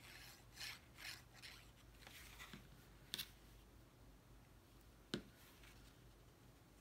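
Faint rubbing and rustling of cardstock handled by hand as a glued tab is pressed down, with two small sharp clicks or taps about three and five seconds in.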